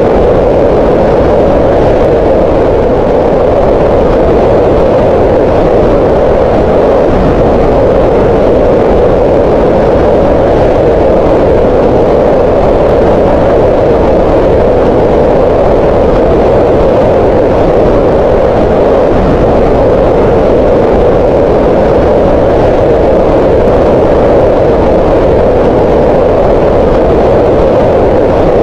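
Green noise: a steady, unchanging hiss whose energy sits in the middle of the pitch range, with no rhythm or breaks.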